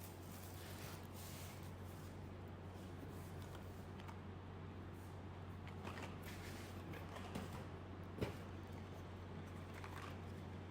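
Quiet handling of film boxes and packaging: scattered soft taps and rustles, with one sharper click a little past eight seconds, over a faint steady low hum.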